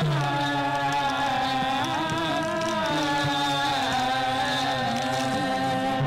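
Old Gurung folk song: a voice singing long held notes that slide from one pitch to the next.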